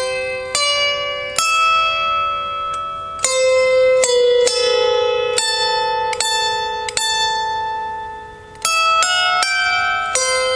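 Harp played slowly and a little haltingly: plucked single notes and small chords that ring on, one note left to die away for several seconds before the plucking starts again near the end.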